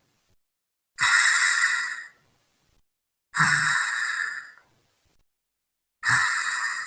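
Snoring: three long, noisy snores about two and a half seconds apart, each starting sharply and fading out, with silence between.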